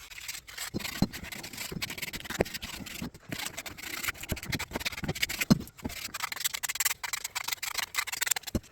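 Hand-sanding the edges of small wooden blocks with 120-grit sandpaper: quick, rasping back-and-forth strokes, with a few light knocks of the wood along the way.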